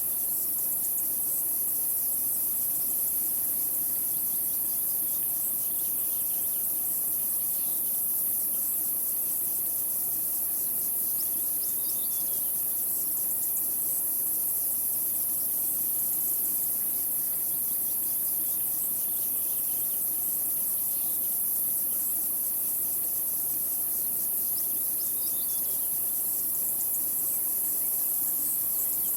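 Insects shrilling in a steady high-pitched drone, with a bird's short falling call heard faintly twice.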